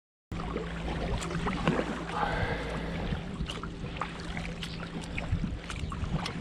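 Boat motor running at a steady pitch under water and wind noise, with a few light knocks and clicks.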